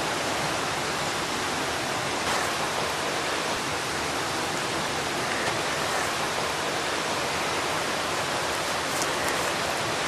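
Waterfall's water rushing steadily, an even unbroken hiss with no change in strength.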